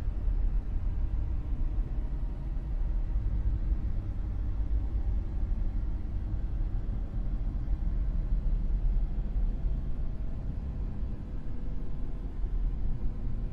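Dark noise: a steady, deep rumbling hiss weighted heavily toward the bass, with a slightly fluttering level and no distinct events.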